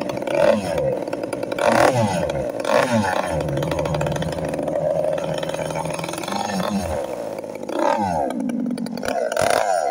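Small model engine of a radio-controlled hot rod boat running, revved up and down several times with steadier running in between.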